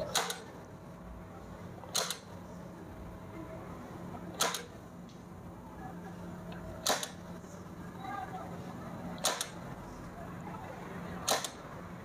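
Six sharp clicks about two seconds apart. Each is a single push button being pressed and the relay and magnetic contactor switching, so every press toggles the start-stop circuit on or off.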